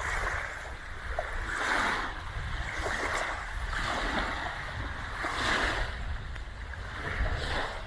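Small waves washing on a sandy beach, a soft swish every second or two, over a continuous low rumble of wind on the microphone.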